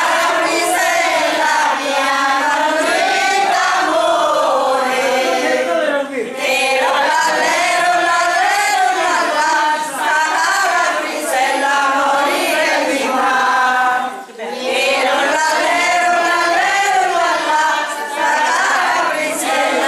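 Women singing a traditional Calabrian folk song together, in long phrases with brief breaks about six and fourteen seconds in.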